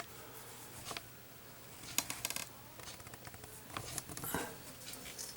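Faint clicks and light rustling as a small cardboard Zippo lighter box is handled and opened, with a quick run of ticks about two seconds in.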